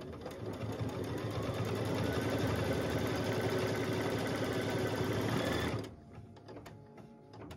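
Baby Lock computerized embroidery machine stitching a single straight tack-down line, the needle running fast and steady. It builds up over the first second or two and stops abruptly about six seconds in.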